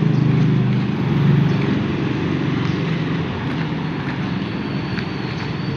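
Motorcycle engine running close by, loudest about a second in and then slowly fading, over the hum of street traffic.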